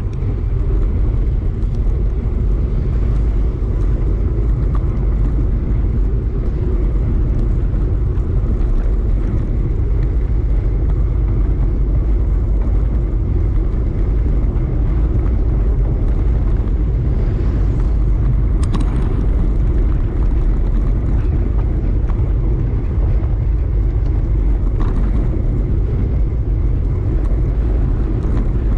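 Steady wind rush buffeting the microphone of a camera on a moving bike, with road rumble from the ride.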